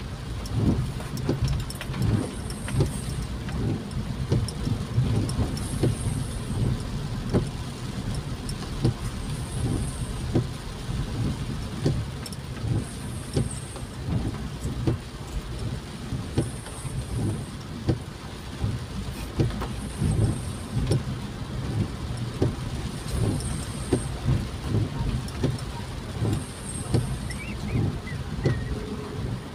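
Riding in a vehicle through rain, heard from inside: a steady low road-and-engine rumble with scattered taps and knocks. A windshield wiper swishes across the wet glass about every three and a half seconds.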